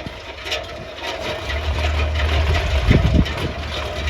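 Hole-drilling machine running with an engine-like mechanical noise; a deep low rumble strengthens about one and a half seconds in and holds, with a couple of short knocks around three seconds in.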